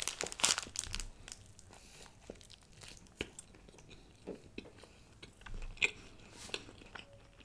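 A person biting into a paneer kathi roll and chewing it close to the microphone: a quick run of bite and mouth clicks in the first second and a half, then scattered quieter chewing clicks.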